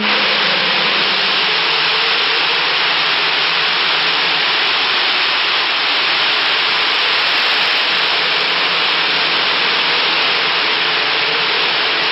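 Recorded wind sound effect from a storybook app: a steady, loud blowing of wind that starts suddenly and holds evenly without a break.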